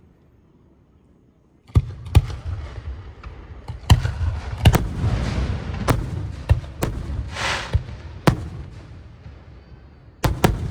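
Aerial fireworks shells bursting: after a quiet start, a rapid run of sharp bangs with a low rumble begins, with hissing and crackling between the reports, easing off before two more bangs near the end.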